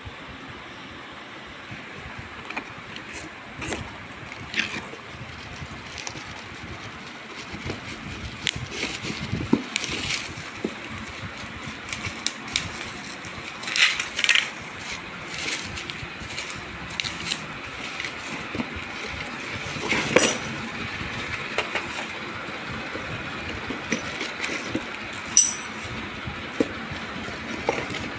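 Cardboard box and plastic wrapping handled by hand: irregular rustling, crinkling and taps, with louder crinkles of plastic wrap being pulled out about halfway through, over a steady background noise.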